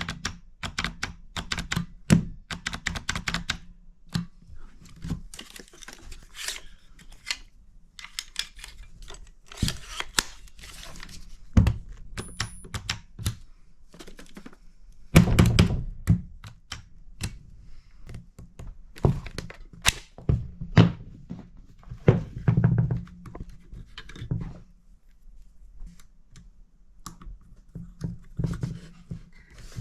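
Irregular clicks, taps and knocks of hand work on small tools and hard parts, as during the repair of a battery-powered tacker. The strokes are spaced at random, with a louder clatter of knocks about fifteen seconds in and again around twenty to twenty-three seconds.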